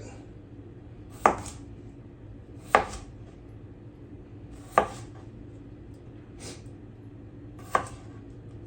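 A kitchen knife chopping through potatoes on a cutting board: four sharp knocks spaced one and a half to three seconds apart, with a faint one in between.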